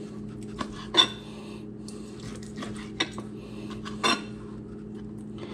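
Chef's knife cutting through cooked octopus tentacles and knocking against a plastic cutting board: a few sharp knocks, the loudest about a second in and more around three and four seconds in, over a steady low hum.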